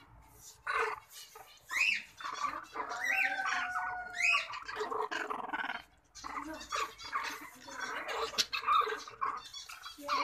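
Puppies play-fighting: a quick run of high-pitched squeals and yips, several rising in pitch, with a brief lull about six seconds in.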